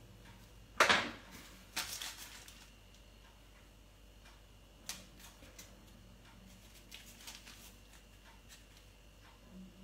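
Hands working kitchen string around a turkey roll on baking paper: a few short rustles and taps, the loudest about a second in, then a single click near five seconds and faint scattered ticks.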